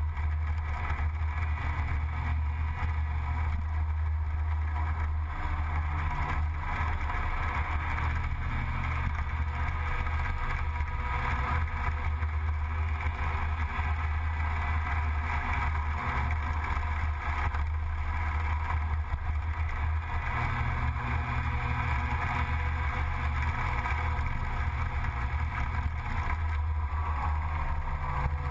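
Gilera Runner 180 scooter engine running steadily at cruising speed, heard from a camera mounted on the moving scooter.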